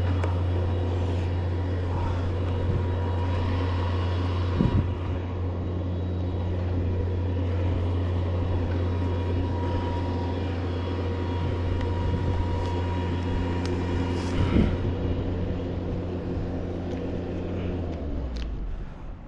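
An engine running steadily at one constant speed, with a couple of short knocks over it. The engine drops away near the end.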